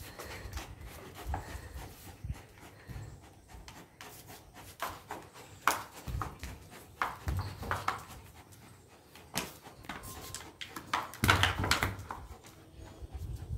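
Black Labrador panting and scuffling as it tugs on a toy held by a person, with scattered short scrapes and knocks; the busiest cluster comes near the end.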